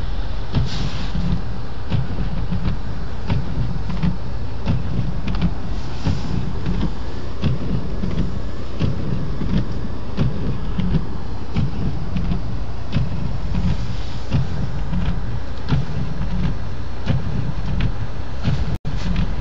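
Road and engine noise inside a moving taxi's cabin: a steady low rumble with frequent small clicks and knocks, broken by a brief dropout near the end.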